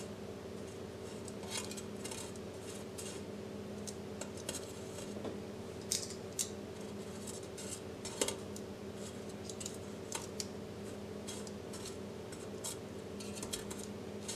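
Silicone-tipped kitchen tongs clicking and tapping against the perforated air fryer basket, in scattered short knocks, as cornmeal fritters are picked up and turned over. A steady low hum runs underneath.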